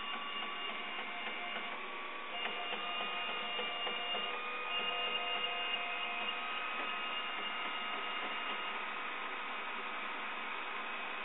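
Solidoodle 3D printer running: its stepper motors whine in several steady tones that start, stop and shift slightly in pitch as the axes move, over a steady hiss.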